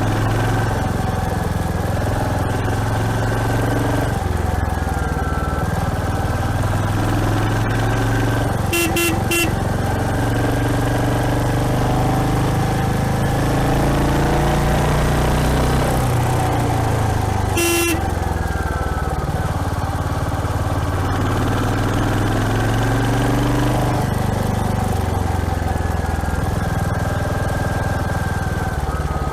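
Royal Enfield Hunter 350's single-cylinder engine running under way, its pitch rising and falling with throttle and gear changes. A few short horn toots sound about a third of the way in, and one more just past halfway.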